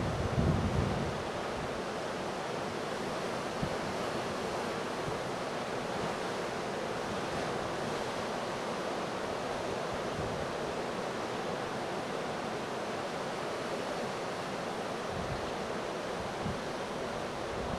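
Steady surf washing in, mixed with wind. The wind buffets the microphone with low rumbling gusts, strongest in the first second and again briefly near the end.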